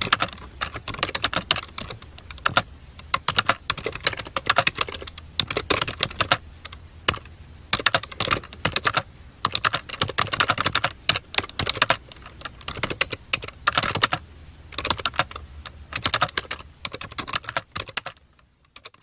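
Typing on a computer keyboard: rapid runs of key clicks in bursts with brief pauses, stopping shortly before the end.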